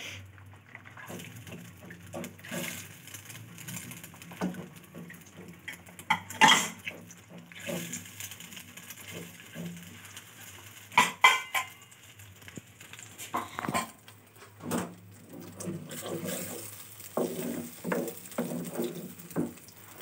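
Wooden spatula scraping and knocking in a nonstick wok as fried eggs are chopped up and stirred, with irregular taps and a couple of louder knocks about six and eleven seconds in.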